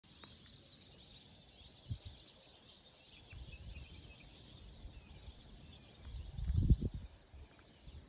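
Many birds chirping and calling together over open pasture, with low rumbling surges on the microphone, the strongest a little before the end.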